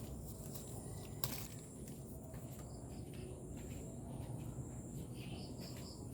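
Insects chirring steadily over low background noise, with one sharp click about a second in and a few short high chirps near the end.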